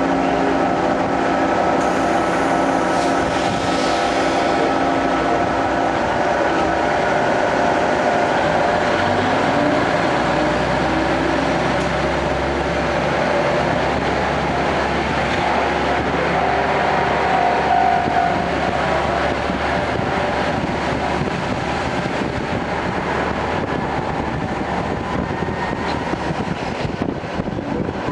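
Tenryu Hamanako Railway TH3501 diesel railcar, heard from inside the cabin, pulling away from a stop. The diesel engine runs steadily and its note changes about ten seconds in as the train gathers speed.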